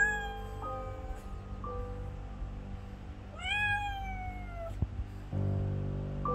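A calico cat meowing twice: a short meow right at the start and a longer one about three and a half seconds in that rises and then slowly falls in pitch. Background music with notes changing about once a second plays under it.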